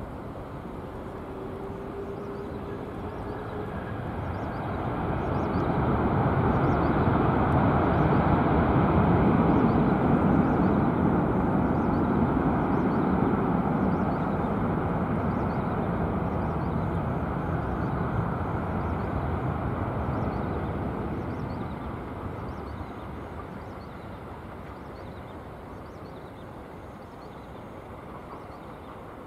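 Jet engines of an Airbus A330-200F freighter during its landing roll: a broad, rumbling noise that swells a few seconds after touchdown, holds loud for about fifteen seconds, then fades as the aircraft slows and moves away.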